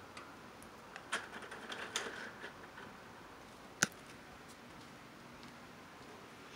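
Plastic vertical blinds being opened: a run of light clacks and rattles of the slats, then one sharp click a little later.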